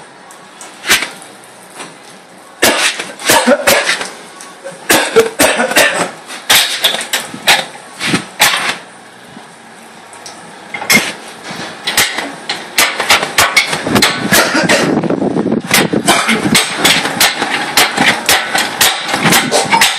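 Metal clanking and knocking from an engine hoist and the chain holding a hanging engine and gearbox as they are worked. The knocks are scattered at first, then come quicker and closer together past the middle, with a steady clatter underneath.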